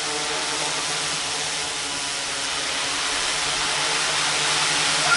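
Large quadcopter with four Emax MT3515 motors turning 15x4 propellers, hovering: a steady hum with an even hiss of prop wash above it, growing slightly louder toward the end.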